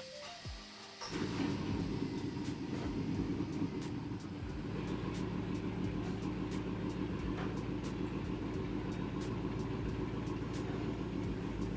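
Chevy Silverado's 5.3-litre V8 with a Truck Norris camshaft idling steadily, setting in about a second in.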